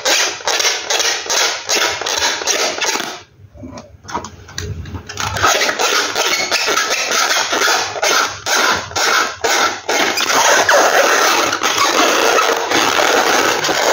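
Hands squeezing and rubbing an inflated latex balloon: quick rubbery squeaks and scraping strokes, which pause briefly about three seconds in and then go on denser and more continuous.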